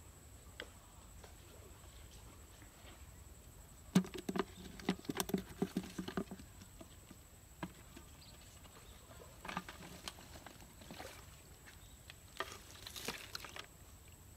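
Rustling and light tapping in three short flurries: the loudest, a quick run of taps, comes about four seconds in, with smaller ones near ten and thirteen seconds.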